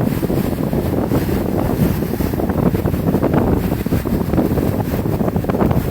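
Wind rumbling on the microphone over the steady wash of ocean surf on a beach.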